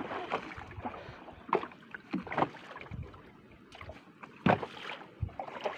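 Handling noise aboard a small fishing boat: a few irregular sharp knocks and clatters over a soft wash of water against the hull.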